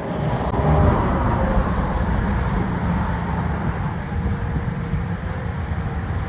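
Steady road traffic noise with wind buffeting the microphone, swelling about a second in.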